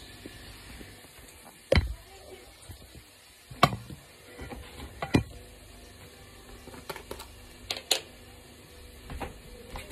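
Scattered sharp knocks and clicks of kitchen handling, about seven in all, from a jar of crushed garlic and utensils being handled, over a faint steady hum.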